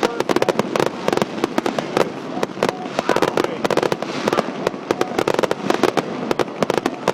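Fireworks going off in rapid succession: a dense, continuous stream of sharp cracks and pops, many a second.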